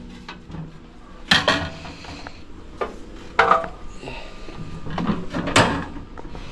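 Metal tractor parts clanking as they are handled and set down: about four separate sharp clanks, each with a short ring.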